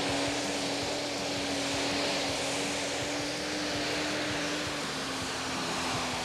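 Pro Stock pulling tractor's turbocharged diesel engine running flat out under full load as it drags the weight sled down the track. A loud, steady high engine note that drops slightly in pitch about five seconds in.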